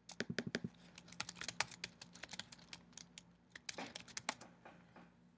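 Typing on a computer keyboard: a quick run of keystrokes, a short pause a little after three seconds in, then a few more.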